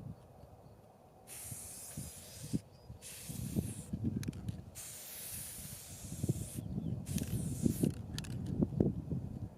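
Aerosol spray-paint can hissing in several bursts of one to two seconds, with short breaks between them, over low rustling and handling knocks.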